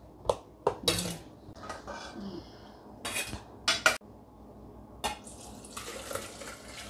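Sharp clicks and knocks as a plastic snap-lid food container is closed and stainless pots are handled on a steel counter. From about five seconds in comes a steady rushing splash as soup is poured from a stainless saucepan into a stainless steel pail.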